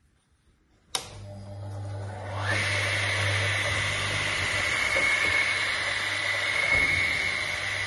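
DeWalt Power Shop radial arm saw switched on with a click about a second in. Its motor and blade spin up with a rising whine, then run steadily with a high whine over a low hum.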